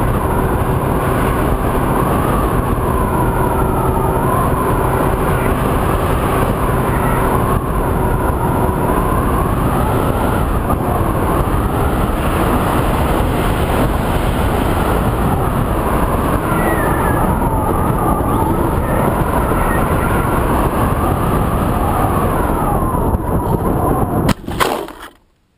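Onboard sound of a Multiplex EasyStar RC plane in flight: the electric pusher motor's whine rising and falling in pitch under heavy wind rush. Near the end the plane touches down in the grass with a thump, and the noise cuts off.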